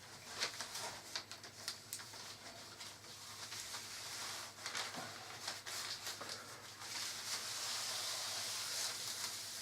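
Paper rustling and sliding under a jigsaw puzzle, with light clicks of the cardboard pieces being handled; the rustle turns into a steadier hiss about seven seconds in.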